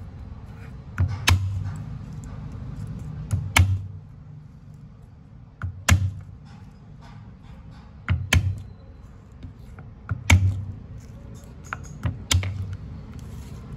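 Flat of a cleaver blade struck with the fist to crush garlic cloves on a wooden cutting board: six sharp thuds about two seconds apart, several with a lighter knock just before.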